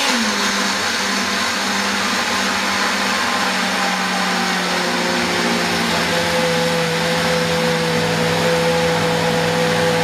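Countertop blender motor running steadily, grinding groundnuts (peanuts) with a little water into a slightly grainy paste. Its pitch drops a little right at the start, then holds steady.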